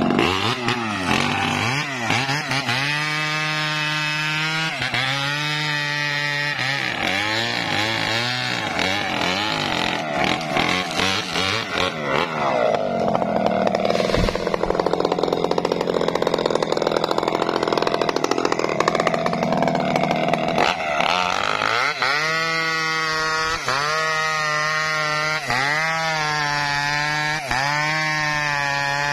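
Chainsaw running. It revs up and down in pitch for the first dozen seconds and again from about three-quarters of the way in; in between it runs steadily with a lower, rougher note under load while cutting coconut palm wood.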